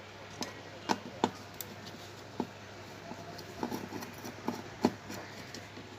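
Scattered light clicks and taps of a screwdriver and small parts being handled on an LED TV's opened chassis and circuit boards, about a dozen irregular strikes.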